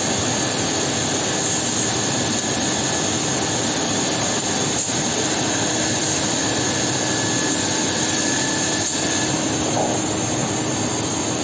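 Holztek HT-6SD-2H six-sided CNC drilling machine running: a steady, loud machine noise with a high whine, its drill spindles and dust extraction going while it works a panel. Two faint ticks come about midway and a little later.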